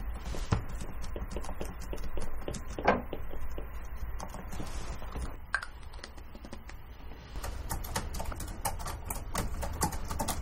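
Laptop keyboard being typed on: irregular key clicks, thinning out for a couple of seconds in the middle and picking up again near the end.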